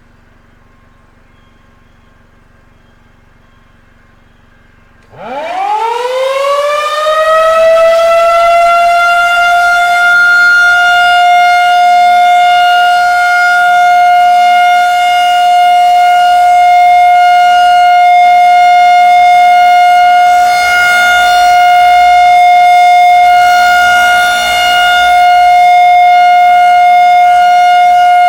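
Federal Signal 2001-130 rotating outdoor warning siren starting up about five seconds in. Its pitch winds up quickly and then holds one loud, steady alert tone, with slight rises and falls in loudness.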